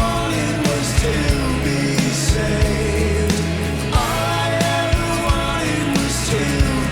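Song with a singing voice over a band, with a steady drum beat.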